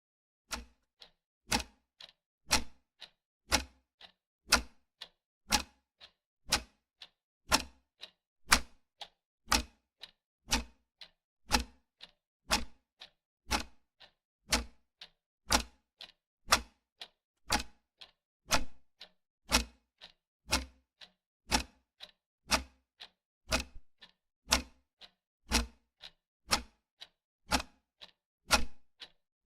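Wall clock ticking steadily, about two ticks a second, alternating a louder tick and a softer tock.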